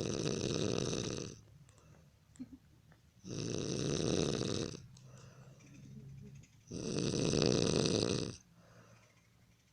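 A man snoring heavily in sleep: three long, rasping snores about three and a half seconds apart, with softer breaths between them.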